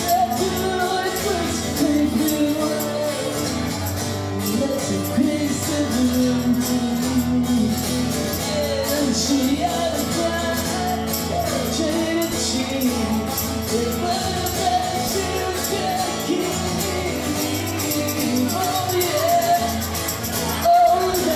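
Live rock band playing a song: electric guitar, bass and drums with a sung lead vocal, and a tambourine shaken along with the beat.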